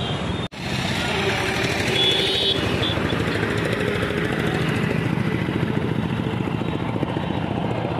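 A motor vehicle engine running close by amid roadside traffic, an even noise with fast steady pulsing. The sound cuts out for an instant about half a second in.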